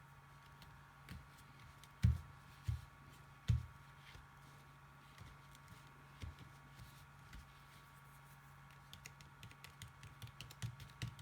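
Hands pressing and patting glued paper down onto card on a tabletop: a few soft thumps about two to three and a half seconds in, then a run of quick light taps near the end, over a low steady hum.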